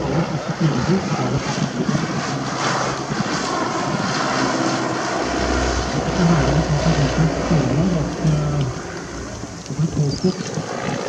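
De Havilland DH.60 Moth biplane flying overhead, its propeller engine droning steadily, louder at times as it passes and banks.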